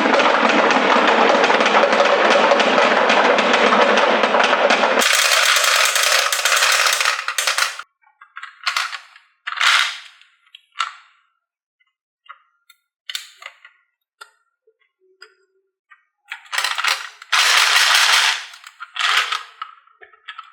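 Marbles clattering along a HABA wooden marble track: a dense, continuous rattle for the first eight seconds or so, then short separate runs of clatter with pauses, and another dense burst near the end.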